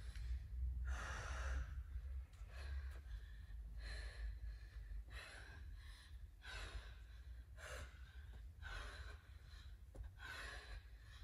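A woman breathing hard and gasping from exertion as she rests and then lifts a kettlebell, with a loud breath about every second or so.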